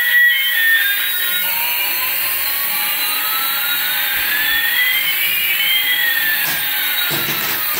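Small coaxial-rotor toy helicopter flying, its motors and rotors giving a steady high whir, with one whining tone slowly rising while another slowly falls. Music plays for about the first second.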